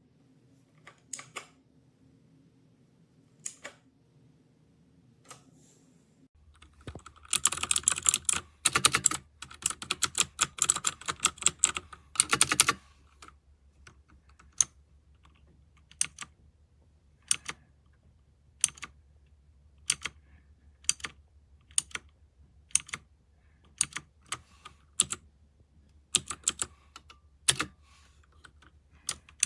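Typing on a MageGee 75% mechanical keyboard with red linear switches: a few separate key presses, then a fast burst of typing for about five seconds, then single keystrokes roughly once a second.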